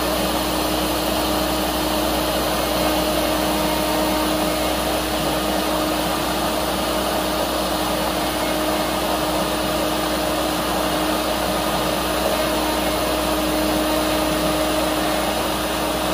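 CNC router spindle running steadily while a V-bit engraves lettering into wood, a steady whine over an even rushing noise.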